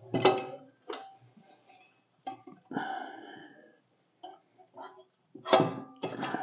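Metal snowblower hitch parts clanking as they are fitted under a compact tractor's front frame: a sharp knock at the start, several more clanks, and a short ringing metal scrape midway.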